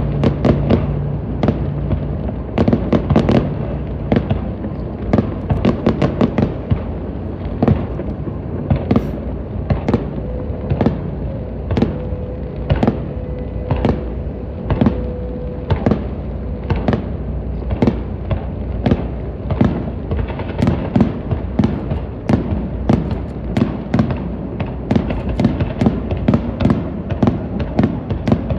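A fireworks display, with shells bursting in quick succession at several reports a second over a steady low rumble. A faint held tone sounds for a few seconds in the middle.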